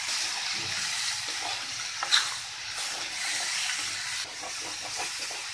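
Green jackfruit pieces sizzling steadily as they fry in oil in a kadai, stirred with a wooden spatula, with one sharp click about two seconds in.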